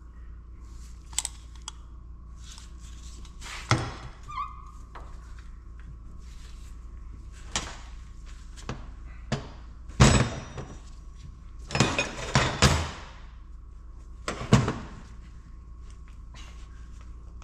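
Metal diesel-governor parts being handled and set down on a workbench: a series of separate knocks and clunks, the loudest about ten seconds in, with a cluster of quick knocks a couple of seconds later.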